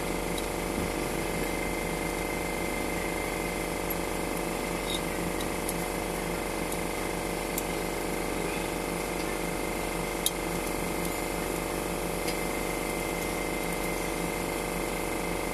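A steady mechanical hum that never changes, with a few faint clicks on top, the sharpest about ten seconds in.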